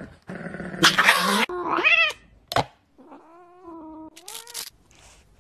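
A chihuahua snarling harshly for the first two seconds, ending in a rising cry. From about three seconds in, a cat in a clear plastic cone gives one long, wavering meow.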